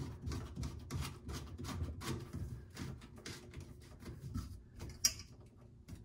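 White plastic sink drain parts being handled as a P-trap is lined up and its slip nut turned by hand, giving light clicks and scrapes several times a second, with one sharper click about five seconds in.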